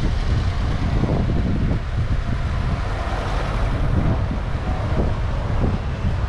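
Wind rumbling on the microphone over outdoor street ambience.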